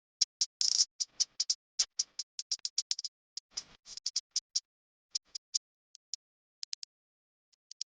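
Quick, irregular sharp clicks of a kitchen utensil striking a bowl, in uneven runs broken by a pause of nearly two seconds midway.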